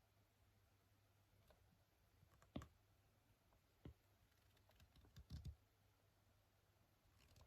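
Scattered soft clicks and taps over a quiet, steady low hum: a sharp one about two and a half seconds in, another about a second later, a short cluster around five seconds, and a faint one near the end.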